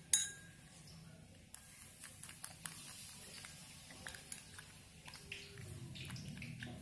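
A plastic spoon stirring a slime mixture of liquid soap and clear glue in a small glass bowl, with faint scraping and scattered small clicks. One sharp clink comes just after the start.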